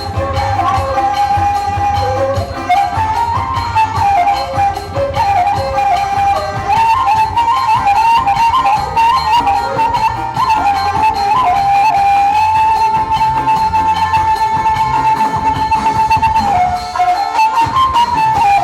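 Traditional Batak ceremonial music: a reedy wind instrument plays an ornamented melody, holding one long note for a few seconds before the end, over a steady low drum beat.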